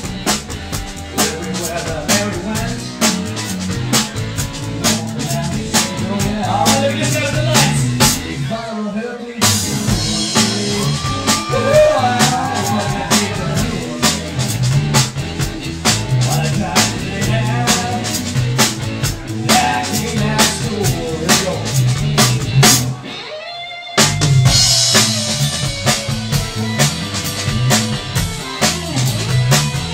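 Blues-rock trio playing live: electric guitar over a driving drum kit. The band stops briefly about three quarters of the way through and comes straight back in.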